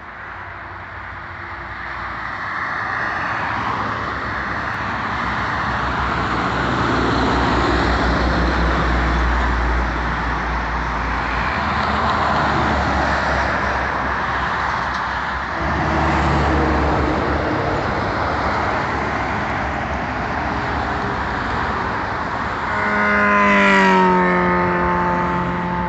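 Highway traffic with coaches and cars passing, a coach's diesel engine rumbling loudly as it passes close around the middle. Near the end a vehicle passes close with a tone that falls in pitch and then holds steady.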